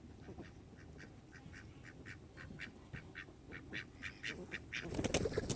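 Domestic ducks calling: a run of short, raspy notes, about three a second, that quicken and grow louder near the end.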